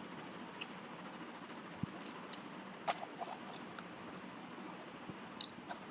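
Steady faint room hiss with a handful of scattered, sharp little clicks and ticks, the loudest about three seconds in and again near the end.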